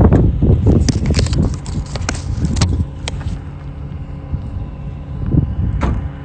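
Footsteps crunching through dry brush and dirt, a quick run of crackles over the first three seconds, then only a stray one near the end. Wind buffets the microphone throughout as a low rumble.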